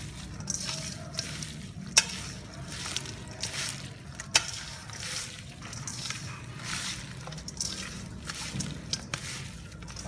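A hand mixing raw chicken pieces with shredded lemongrass and leaves in a stainless steel bowl: irregular wet squishing and rustling strokes, with two sharp clicks about two and four seconds in.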